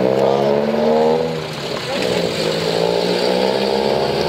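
A car's engine revving as the car drives off, rising in pitch for about a second and a half, easing off briefly, then running at a steadier pitch.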